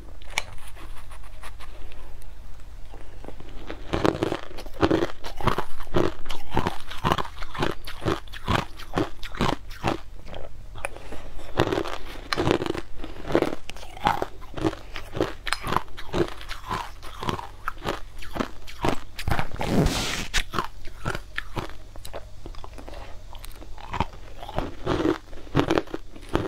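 Crushed ice being bitten and chewed close up, a rapid run of crunches, two or three a second. It is quieter for the first few seconds, with one longer, louder crunch a little past the middle.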